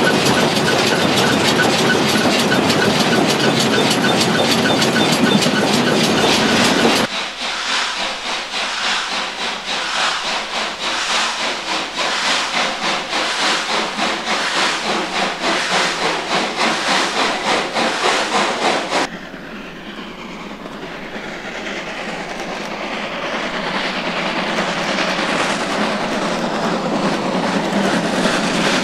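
Class 52 2-10-0 steam locomotive (TCDD 56 548, ex-Reichsbahn 52 7429) heard from inside its cab, first as a loud, dense clatter and hiss, then as a rhythmic beat of about one and a half a second. About two thirds through, the sound cuts to the locomotive working toward the lineside, growing steadily louder as it approaches.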